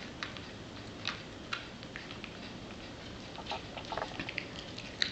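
Yorkshire terrier chewing a raw chicken leg, her teeth cracking and crunching the bone in soft, irregular clicks that come faster in a run near the end.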